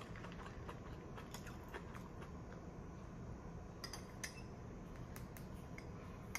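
Faint, scattered clinks of ice against a glass of lemon water as it is stirred with a straw and drunk through it.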